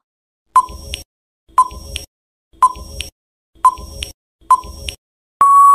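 Quiz countdown timer sound effect: five short beeps about one a second, then a long steady beep that starts near the end as time runs out.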